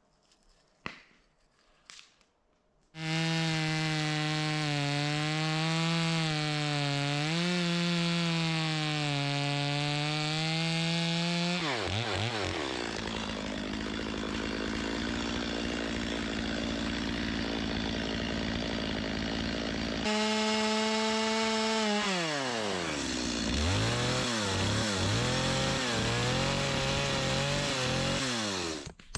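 Two-stroke Stihl chainsaw starting up about three seconds in and cutting across the top of a tree stump to level it. The engine note drops sharply twice as the chain bites into the wood, and the saw stops just before the end.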